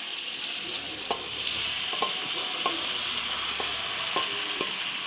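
Potatoes frying in oil in a kadhai, sizzling steadily, with a spoon knocking against the pan about six times. The sizzle swells about a second and a half in as chopped fenugreek (methi) leaves go into the hot pan.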